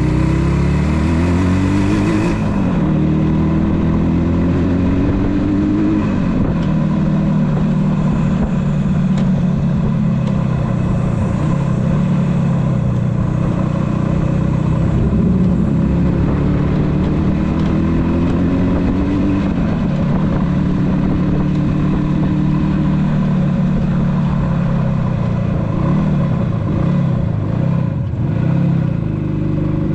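Yamaha RD400's air-cooled two-stroke parallel-twin engine pulling away from a stop and accelerating through the gears. Its pitch rises and drops back at each shift, then holds steady at cruising speed.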